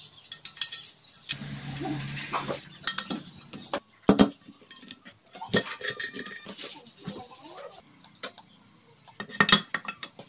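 Metal parts clinking and knocking as steel transmission shafts and gears are fitted into a Yamaha Serow 225's aluminium crankcase half. It is a run of irregular clinks, with sharp knocks about four seconds in and again near the end.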